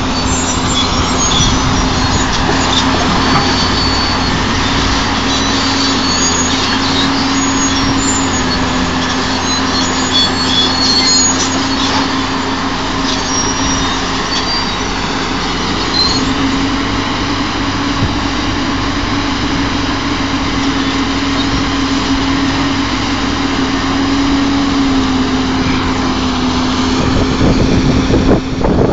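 Caterpillar 330B hydraulic excavator's diesel engine running steadily as the machine works, its pitch dipping slightly and coming back, with scattered faint clicks and squeaks.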